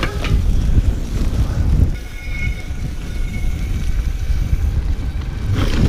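Wind rushing over the microphone with a steady low rumble from a 29er mountain bike rolling over snowy singletrack. A faint thin squeal sounds for about two seconds midway.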